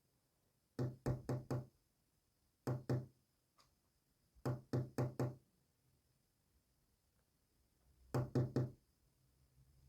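Knocking on a hard surface in four quick groups of three or four even knocks, with pauses of one to three seconds between groups, tapped out as a knock code presented as Morse code.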